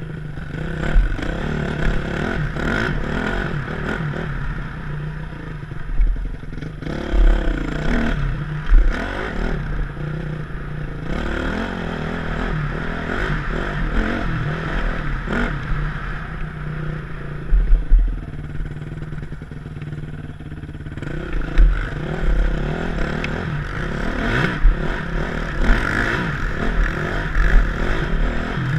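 A 2007 Yamaha YZ450F four-stroke single-cylinder dirt bike engine revving up and down as it is ridden hard, heard from a helmet-mounted camera. Sharp clattering knocks at irregular moments come from the bike hitting rough ground.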